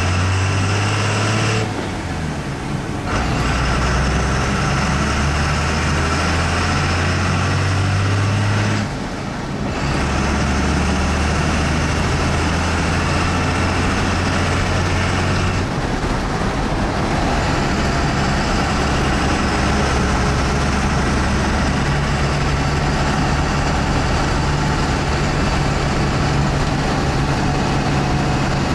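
12-valve Cummins inline-six diesel with a VE injection pump and PowerJet Stage 2 injectors, pulling a truck through the gears, heard from inside the cab. The engine note breaks at each gear change, about two, nine and sixteen seconds in, then runs steadily.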